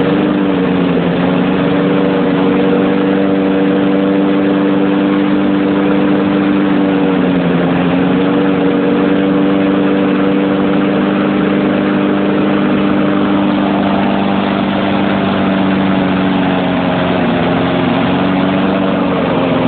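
Lawnmower engine running steadily on gasoline vapor fed through a hose from a jug, its speed sagging slightly a couple of times.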